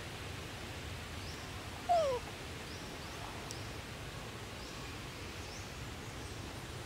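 A young macaque gives a single short call about two seconds in, sliding down in pitch. Behind it is a steady forest background hiss with faint, short, high chirps recurring throughout.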